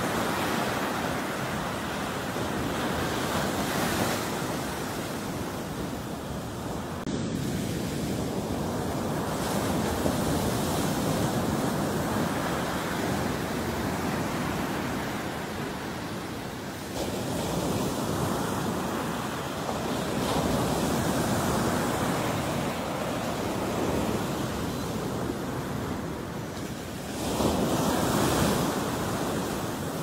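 Ocean surf: small waves breaking and washing up a sandy beach. The rushing is continuous and swells with a fresh breaker about every ten seconds.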